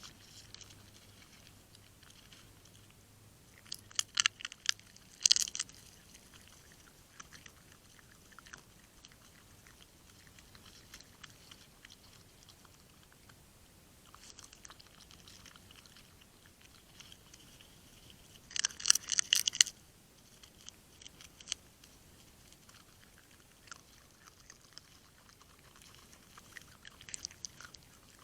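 A small animal crunching food close to the microphone. There are two bursts of rapid, sharp crunches, about four seconds in and again near nineteen seconds, with scattered fainter clicks between.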